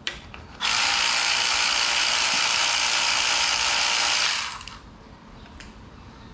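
Cordless electric ratchet running steadily for about four seconds, then trailing off, backing out a fastener to remove the old dipstick tube from a Toyota V6 engine.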